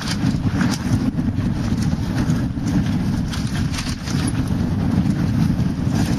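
Wind buffeting the microphone of a helmet camera on a fast mountain-bike descent, a loud steady rumble, with scattered knocks and rattles from the bike over the rough dirt trail.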